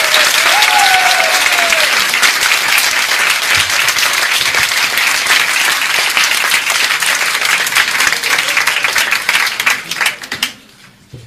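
Audience applauding steadily, then dying away about ten and a half seconds in.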